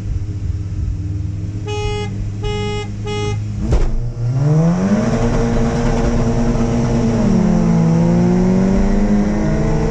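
Three short car-horn toots, then a car engine revving up hard: the pitch climbs steeply, holds high, dips about seven seconds in and climbs again before falling off near the end.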